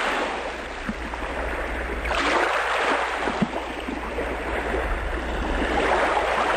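Rushing water noise over a steady low rumble, swelling about two seconds in and again near the end.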